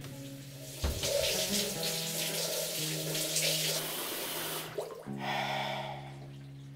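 Water running hard from a bathroom tap or shower, then shut off suddenly about five seconds in, with a shorter, softer rush just after. Soft sustained background music plays underneath.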